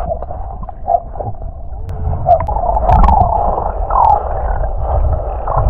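Muffled underwater sloshing and gurgling of sea water churned by dogs paddling at the surface, heard from below through a submerged camera, with a deep rumble underneath and a few sharp clicks.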